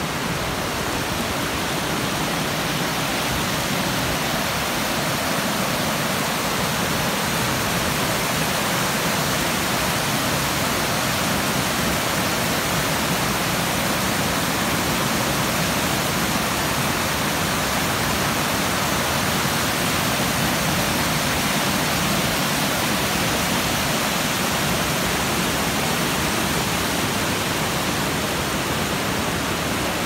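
Shallow river rushing over a low rock ledge and rapids: a steady, even rush of water.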